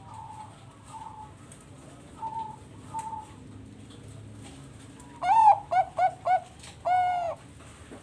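Bangkok-type perkutut (zebra dove) singing its cooing song phrase: one long note, three quick short notes and a final long held note, loud, about five seconds in. Fainter coos from other doves are heard before it.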